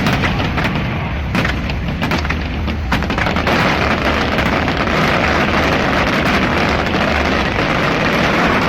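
Fireworks going off in rapid succession: a dense crackle of many small sharp bursts with deeper booms underneath, thickening into one unbroken wash of crackling about three seconds in.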